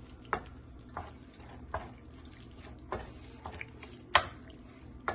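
Spoon stirring raw ground beef mixed with flour and water in a stainless steel pan, heat not yet on: wet squelching with a sharp knock of the spoon against the pan about once a second, the loudest a little after four seconds in.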